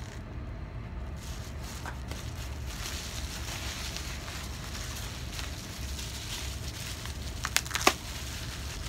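Plastic bubble wrap crinkling and rustling as wrapped tobacco tins are handled and pulled out of a cardboard box. A few sharp clicks come near the end.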